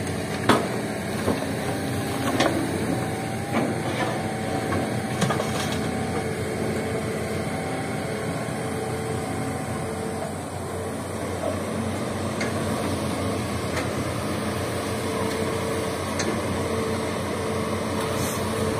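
Diesel engines of a tracked excavator and a dump truck running steadily, while the excavator's bucket tips red rocky soil into the truck's steel tipper bed; a handful of sharp knocks of rocks striking the bed come in the first few seconds.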